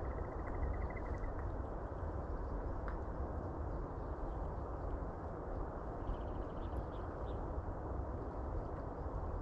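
Steady wind rumbling on the microphone, strongest in the low end. A high, rapid trill stops about a second in, and a few faint chirps come around six seconds.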